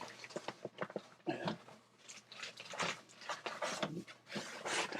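Cardboard shipping box being pulled and wrestled at, in a run of irregular scrapes, knocks and rustles as a heavy package is worked out of it.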